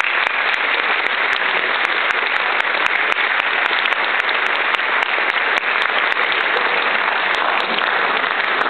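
Large audience applauding, a dense, steady mass of clapping that begins to die away at the very end.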